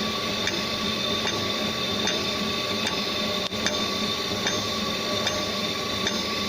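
GD 450Q circular saw blade grinder running with a steady hum, ticking lightly about every 0.8 s as it indexes through the teeth. It is set to skip a tooth, so it grinds every other tooth.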